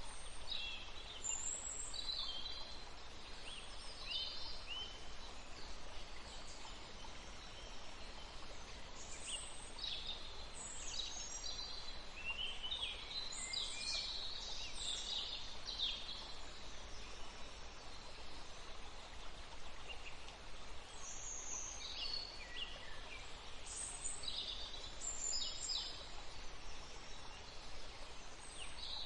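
Small birds chirping and singing in quick, high notes, in clusters with a lull in the middle, over a steady background hiss.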